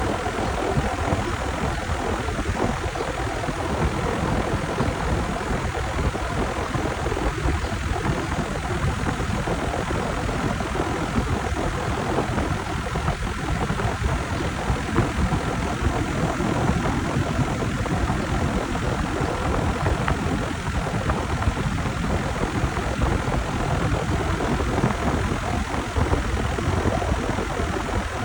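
American Standard central air conditioner's outdoor condenser unit running steadily: the condenser fan, fitted with a new blade, sends out a constant rushing whoosh over the compressor's hum while the system, low on R-410A, runs to be recharged.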